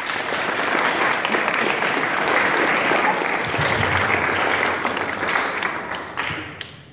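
Audience applauding for an award winner, building over the first second and dying away near the end.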